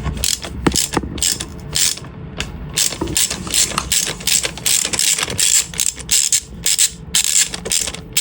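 Hand socket ratchet clicking in repeated short strokes as its handle swings back, loosening fasteners to get the spark plugs out of the engine.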